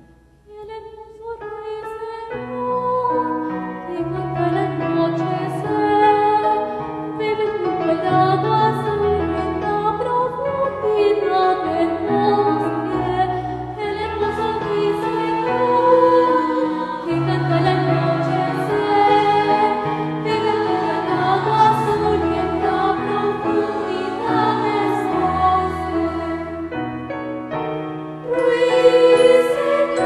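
Musical number from the stage show: a sung melody over keyboard chords and a low bass line, coming in softly about a second in and carrying on at an even level.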